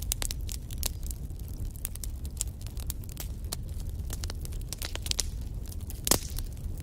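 Wood fire burning in a fireplace: a low steady rumble of flames with frequent sharp crackles and pops of burning logs, one louder pop about six seconds in.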